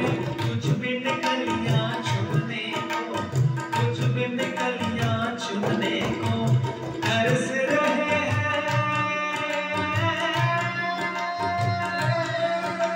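Tabla playing a brisk, steady rhythm under keyboard accompaniment in a devotional bhajan. From about seven seconds in, long sustained melody notes are held over the drumming.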